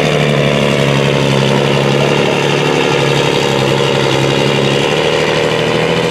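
Volvo FH pulling truck's turbocharged diesel engine running hard under heavy load as it drags a weight-transfer sled, a loud, steady drone that holds one pitch.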